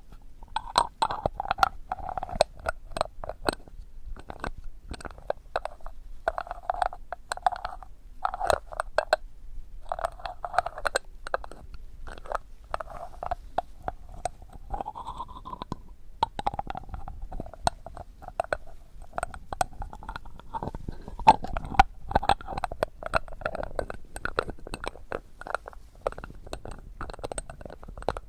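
Close-miked ASMR trigger sounds: a dense, irregular run of sharp clicks and crackles over a wavering mid-pitched hum that breaks off and returns every second or two.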